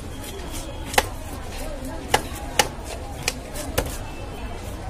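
About five sharp, irregularly spaced knocks on a wooden chopping block, the loudest about a second in, as a large bighead carp is handled and cut.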